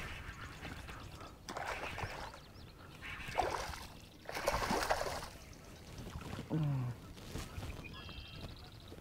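Hooked largemouth bass splashing and thrashing at the surface beside the boat as it is played in, in three or four short splashes. A brief low sound with a falling pitch follows about two-thirds of the way through.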